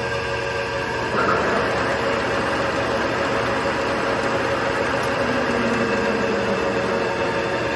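TOS Trencin SN55U engine lathe running under power, a steady machine hum with a whine of gearing; it gets louder about a second in.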